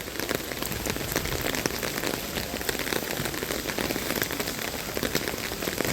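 Heavy rain falling steadily: a dense patter of drops with many small sharp ticks.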